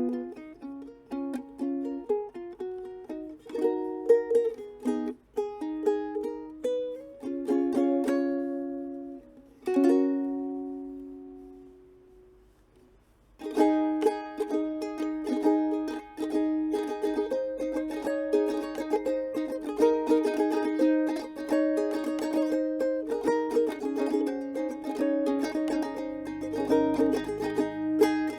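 Owl Workshop (오울공방) 'Moul' ukulele being played: a plucked melody with chords, a chord about ten seconds in left to ring and fade out, then about thirteen seconds in steady rhythmic strumming resumes.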